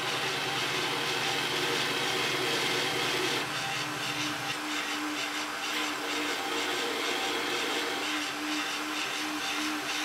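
Belt grinder running, with the edge of a CPM 154 stainless steel knife blade held against a quarter-inch small contact wheel to grind a Spanish notch at the plunge line. A steady grinding noise whose tone shifts about four seconds in.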